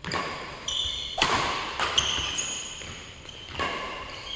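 Badminton rally: sharp racket-on-shuttlecock hits about once a second, with short high squeaks of shoes on the synthetic court mat between them, echoing in a large hall.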